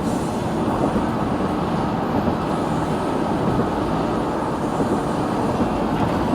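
Steady road and tyre noise of a moving car, heard from inside the cabin.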